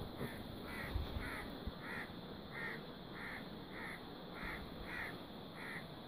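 A crow cawing over and over in an even series, about ten short caws in six seconds. A steady high-pitched buzz runs beneath it.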